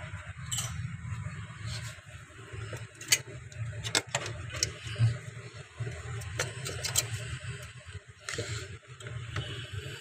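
Scattered light clicks and taps from handling inside a refrigerator's freezer compartment, over a steady low hum.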